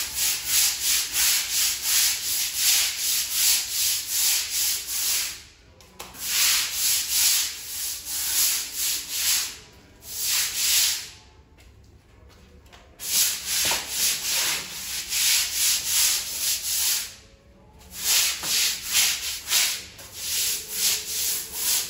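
Stiff-bristled broom scrubbing a wet, soapy ceramic-tile floor, in quick back-and-forth strokes of about three a second. The scrubbing stops briefly a few times and starts again.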